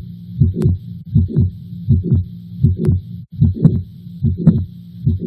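Heart sounds of mitral valve prolapse with mitral regurgitation: paired lub-dub beats (S1 and S2) about every 0.8 s, with a steady murmur running between them.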